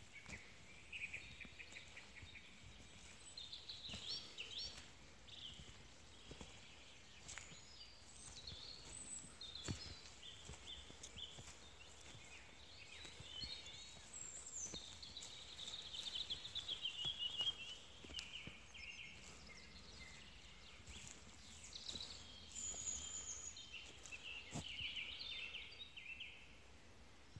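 Wild songbirds singing: many short phrases, whistles and trills, one after another, loudest in a run of trilling about sixteen seconds in.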